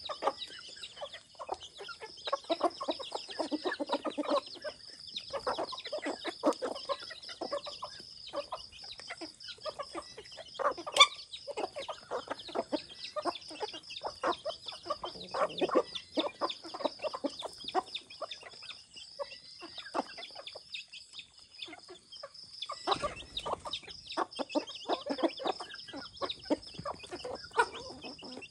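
A flock of chickens clucking as they forage, in runs of quick, low clucks, with a steady high-pitched buzz behind.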